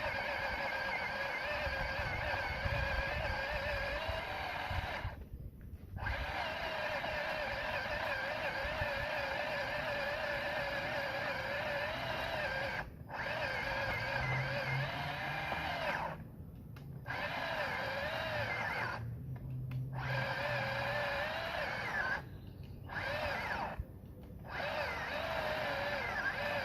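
Worx WG323 20V cordless pole saw's electric motor and chain running with a wavering whine, stopping briefly about six times and starting up again.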